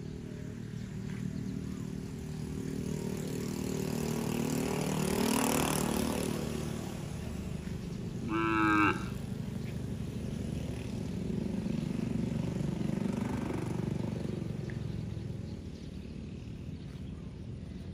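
Cattle mooing: long, low calls that swell and fade, the first around three to seven seconds in and another near the end. About eight seconds in comes a brief, sharper, higher-pitched call, the loudest sound.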